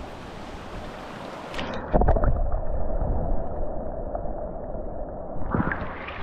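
Mountain creek water running, then heard from under the surface as the camera dips in about two seconds in: the sound turns muffled, deep and gurgling, with splashes going in and again coming out near the end, as a brook trout is released by hand.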